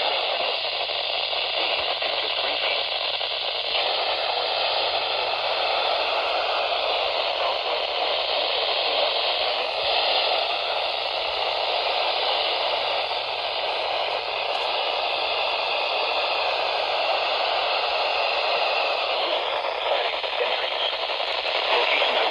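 Steady static hiss from a radio receiver picking up no clear signal, its sound narrowed to the radio's limited audio band.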